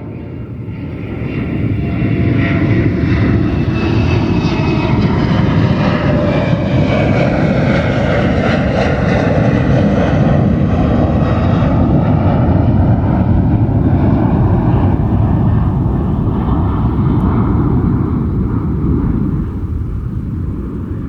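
Jet aircraft passing with a loud engine rumble that swells in over the first two seconds. Its whine slowly falls in pitch as it goes by, and it eases off near the end.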